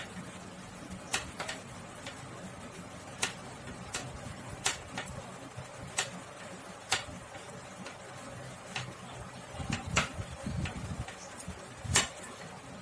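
Metal knitting needles clicking against each other while purl stitches are knitted, in irregular sharp ticks about once a second, with a little yarn rustle near the end.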